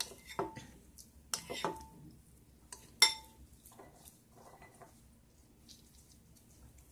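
A metal spoon clinking against a ceramic bowl several times, each clink ringing briefly; the loudest comes about three seconds in. Fainter handling noise follows.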